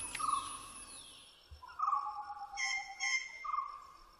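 A whistled animal call repeated three times, about every one and a half seconds. Each call is held on one pitch after a short rough start, and one runs on into a lower note. A brief, higher chirping call sounds near the middle.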